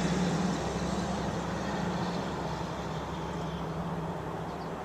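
A vehicle idling: a steady low hum that fades slowly.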